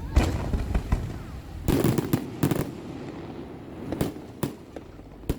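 Fireworks going off: a string of sharp bangs and pops at irregular intervals, thickest about two seconds in, with a low rumble between them.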